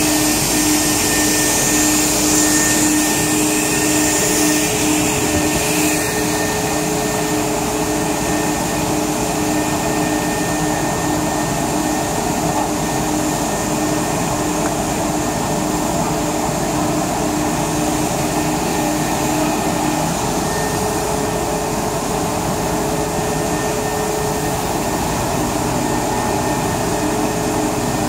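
Cyclone-filter industrial vacuum cleaner running steadily with a few steady tones in its hum, its nozzle sucking up electrostatic powder-coating powder. The rush of air is a little louder and hissier for the first six seconds or so, then settles to an even level.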